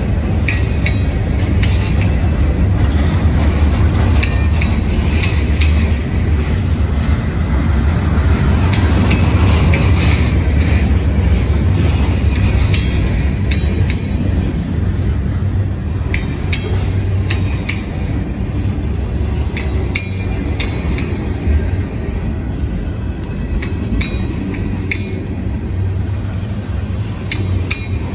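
Loaded freight cars of a long freight train rolling past close by: a steady heavy rumble of steel wheels on the rails, with frequent sharp clanks and clicks from the wheels and couplings.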